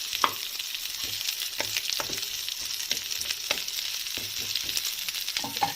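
Sliced onions frying in hot oil in a kadai: a steady sizzle, with scattered short clicks and scrapes from stirring.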